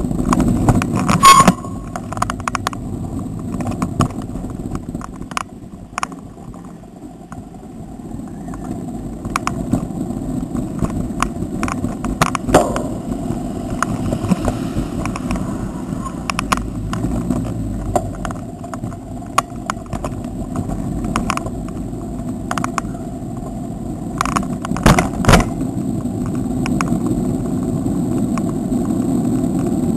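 Wind and road rumble on the microphone of a camera riding along on a moving bicycle, with sharp rattles and knocks as the bike goes over bumps in the surface. The loudest knocks come about a second in, midway through and twice later on.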